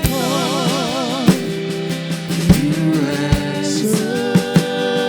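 Live contemporary worship band playing between sung lines: steady drum kit beats under sustained instrumental chords, with a voice holding a wavering vibrato note for about the first second.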